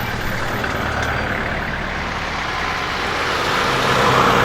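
A heavy vehicle's engine running with road traffic noise, getting louder near the end.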